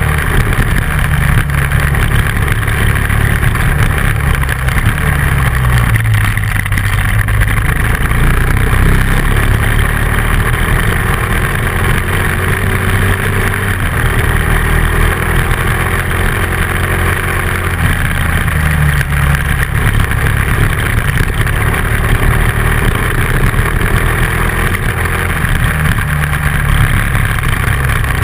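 Dual-sport motorcycle engine running on the move, its pitch rising and falling several times as the throttle changes, over a steady rush of wind and tyre noise on gravel.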